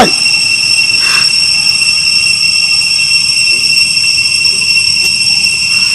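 A loud, unbroken chorus of cicadas: a high-pitched buzzing drone with a higher overtone that does not change. Right at the start a short cry falls in pitch.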